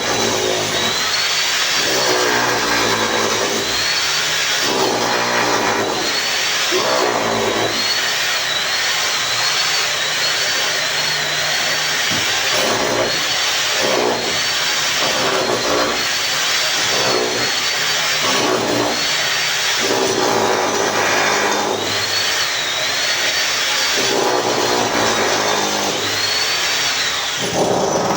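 Handheld power tool motor running continuously, its whine dipping and recovering again and again as it is loaded and eased off. It cuts off suddenly at the end.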